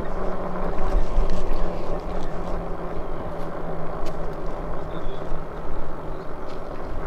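Rumbling wind and riding noise from an e-bike moving along, with a faint steady hum underneath.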